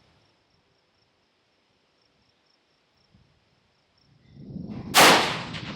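A single rifle shot about five seconds in, sharp and loud with a short fading tail, preceded by a rush of low noise that builds about a second before it.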